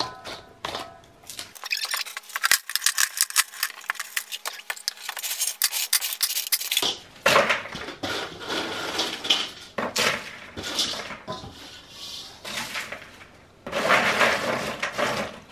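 Kitchen pots, pans and utensils clattering, with many rapid, irregular clicks and knocks, thickest in the first half.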